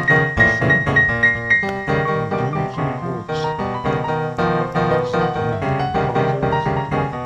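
Background piano music: a steady run of struck notes, with a high note repeated through the first couple of seconds.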